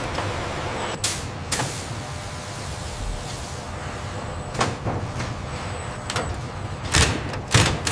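Factory machinery noise: a steady hiss with several short, sharp bursts, most of them near the end.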